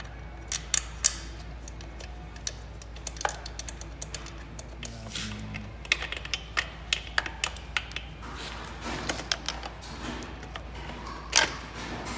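Irregular sharp metallic clicks and clinks of a hand wrench working the rear shock's top mounting bolt, coming in quick runs about halfway through and with one louder clink near the end.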